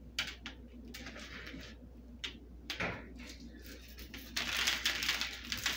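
Sprinkles shaken from a small shaker bottle onto a chocolate-dipped pretzel rod: scattered light ticks, then a dense pattering rattle for about a second and a half near the end.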